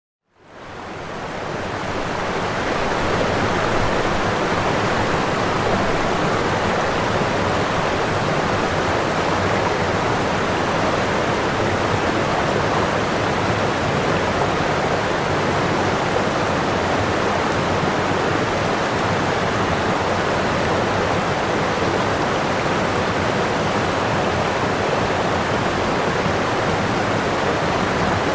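Waterfall: a steady, dense rush of falling water. It starts after a brief cut to silence and swells back in over the first couple of seconds.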